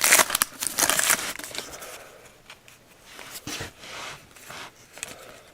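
Plastic trading-card pack wrapper crinkling as it is torn and pulled open, loudest in the first second and a half. Softer rustles follow as the cards are handled.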